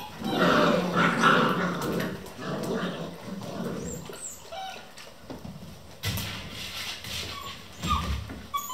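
Young Vizsla puppies yipping, whining and growling as they play-fight, loudest in the first two seconds, then scattered short high whines.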